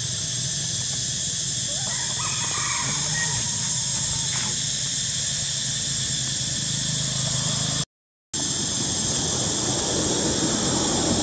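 Steady high-pitched outdoor background drone with a low hum beneath it and a few faint short calls early on; the sound cuts out completely for about half a second around eight seconds in.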